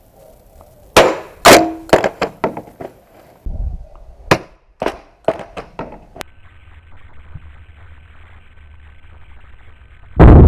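Steelbird SB-42 motorcycle helmet thrown down from a height and hitting hard ground: two loud impacts, then a string of smaller knocks and clatters as it bounces and settles. A sudden loud low rumble starts just before the end.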